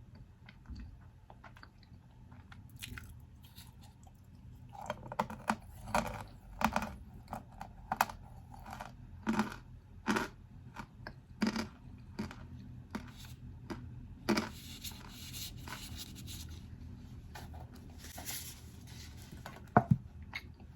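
Packed cornstarch powder being crunched and squeezed by hand. After a few seconds of faint scraping come a dozen or so sharp, squeaky crunches about one a second, then a stretch of finer crumbling, and one last sharp crunch near the end.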